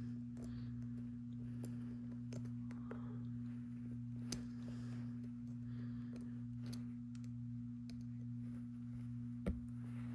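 Faint, scattered clicks of metal tweezers prying at an iPhone XR's Taptic engine, with a sharper knock about nine and a half seconds in, over a steady low hum.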